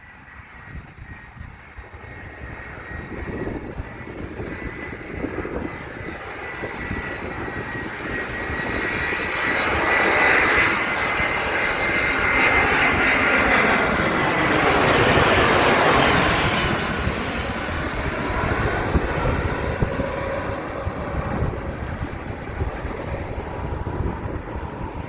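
Airliner passing close by. Its engine noise builds, is loudest about halfway through and drops in pitch as it goes past, then fades. Wind rumbles on the microphone throughout.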